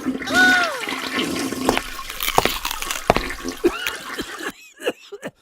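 Rushing, gurgling water with clicks, dying away after about three and a half seconds.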